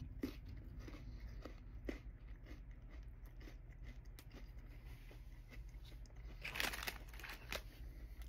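A person chewing a bite of wheat cracker topped with tuna salad, with faint, irregular crunches. About six and a half seconds in there is a brief, louder noise.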